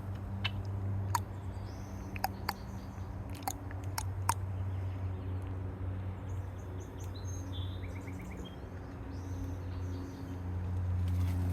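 Small birds chirping, with a few short high calls and a quick run of notes in the second half, over a steady low rumble. Several sharp clicks come in the first few seconds.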